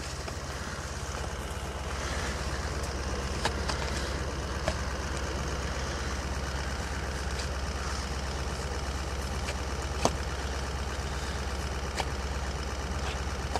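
A vehicle engine idling steadily with a low hum, with a few sharp clicks or knocks over it; the loudest comes about ten seconds in.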